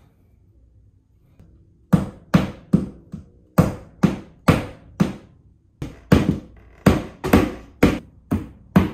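A hammer striking repeatedly, fastening a cable to the wall. It starts about two seconds in: about sixteen sharp strikes, two to three a second, with a short pause midway.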